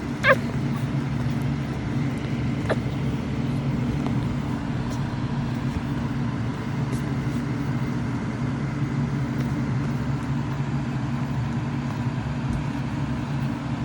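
A young puppy's short high squeak just after the start and a fainter one about three seconds in, over a steady low hum.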